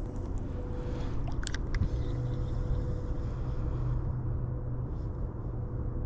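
A steady low rumble with a faint, even hum through it, and a few short clicks about a second and a half in.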